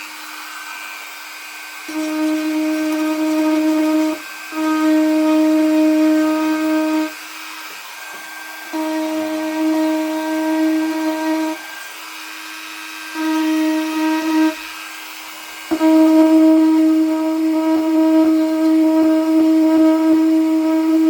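Dremel rotary tool running at a steady high-pitched hum and growing louder in five spells as it is pressed against the work to sand the edges of a fibreglass repair and drill small holes so the filler grips.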